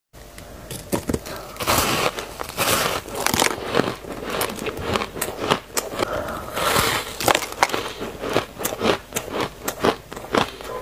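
Close-up biting and chewing of frosty, granular ice blocks: a dense, irregular run of crisp crunches and crackles, several a second, with a few longer grinding crunches as the ice is bitten through.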